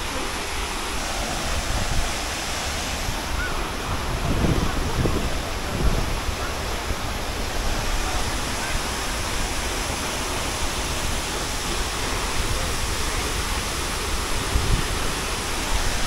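Steady roaring rush of Jeongbang Waterfall on Jeju, a waterfall that drops straight onto the seashore, filling the whole sound with even white water noise.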